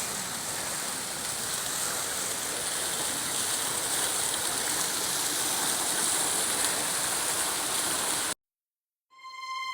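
Steady rush of falling, splashing fountain water. It cuts off abruptly near the end.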